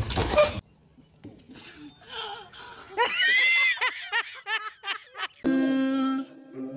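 A woman laughing hard in a quick run of high, rising-and-falling bursts about three seconds in, after a short loud noisy burst at the very start. Near the end a steady held musical tone comes in.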